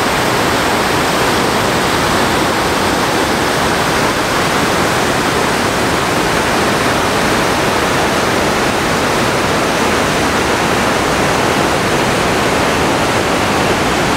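Loud, steady rush of the Lower Falls of the Yellowstone River, a large waterfall, heard up close.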